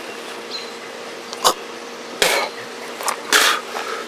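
Liquid squeezed from a sodden lump splashing into an open mouth in a few short wet bursts, over a faint steady hum.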